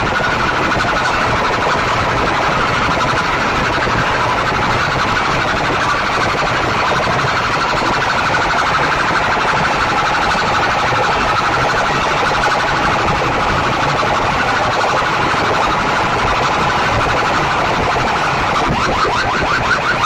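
A wall of horn loudspeakers on a DJ sound rig blasts a constant, harsh, blaring sound at full volume. It centres in the upper midrange, and a fast pulsing pattern comes in near the end.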